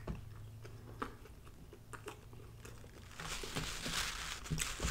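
A person chewing food with the mouth closed: soft mouth clicks at first, then a stretch of crunchy chewing from about three seconds in.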